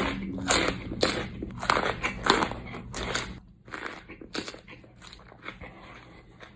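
Close-up crunching and chewing of a jalapeño pepper: crisp bites about twice a second, growing fainter and sparser after about three and a half seconds.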